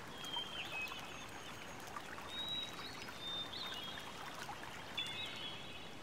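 Soft trickling water with several short, high whistled bird notes spread through, some ending in a quick upturn.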